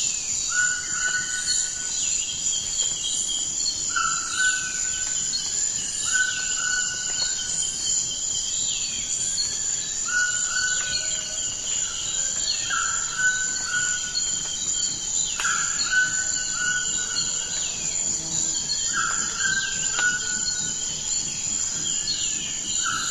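Amazon rainforest ambience: a steady high insect drone with birdsong over it. The birdsong includes a short level note repeated every second or two and several falling whistles.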